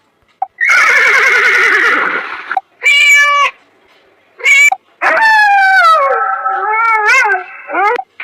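Recorded animal calls played back one after another from an animal ringtone app: about four separate calls with short gaps, the last a long wavering call that falls in pitch.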